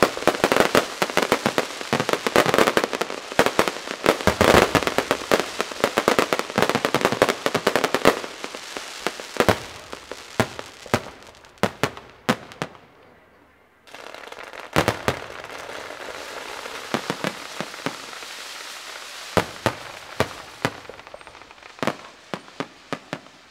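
Aerial fireworks display. Rapid, dense crackling and banging fills the first third, then thins to scattered pops and cracks. About halfway through comes a brief near-quiet break, and after it sparse bangs sound over a steady hiss.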